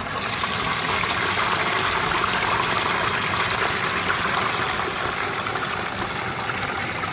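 Open fire burning under a spit-roasting duck: a steady rushing hiss that swells about a second in and eases off again near the end.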